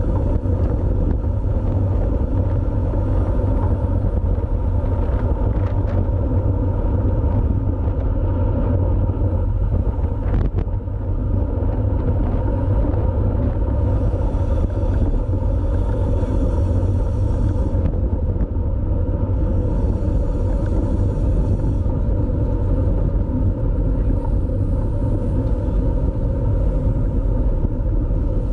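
Steady wind rush and low rumble buffeting the microphone of a camera riding along on a road bike at race speed.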